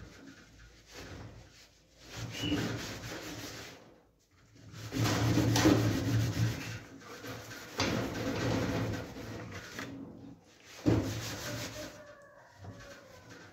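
Steel wool scrubbing greasy sheet metal inside a gas stove, in bouts of rough rubbing strokes with short pauses between them; the longest and loudest bout comes in the middle.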